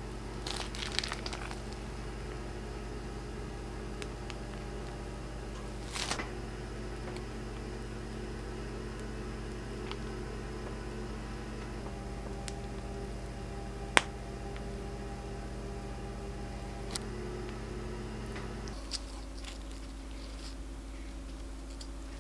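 Soft rustles and a few light clicks from a plastic piping bag being squeezed and handled over a metal baking mold, over a steady low room hum; one sharp click stands out about halfway through.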